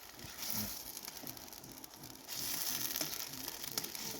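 Food sizzling in a frying pan, a steady hiss that grows louder about two seconds in.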